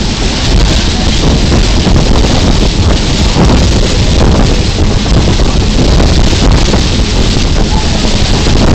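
Wind buffeting the microphone: a loud, steady rushing noise, heaviest in the low end.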